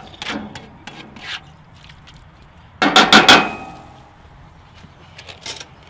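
A metal spatula scraping and tapping in a cast-iron skillet of ground beef, then a loud, ringing clatter of metal utensils about three seconds in.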